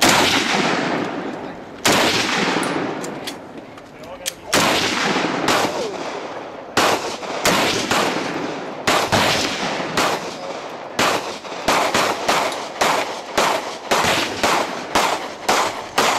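Rifle shots on an open range, each with a long echo: single shots a couple of seconds apart from a semi-automatic M1 Garand, then shots coming faster, about two a second, in the last few seconds as other guns on the line join in.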